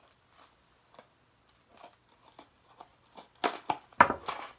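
Scissors cutting into a small cardboard blind box, a few faint snips spaced out. Near the end come louder crackling and rustling of the packaging and a sharp click.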